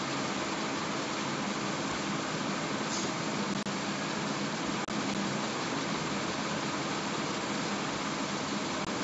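Steady, even background hiss with no other sound, cutting out very briefly twice near the middle.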